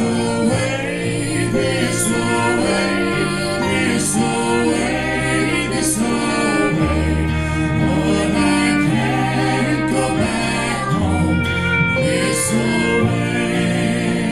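Live folk band playing: singing voices over strummed acoustic instruments and a moving bass line.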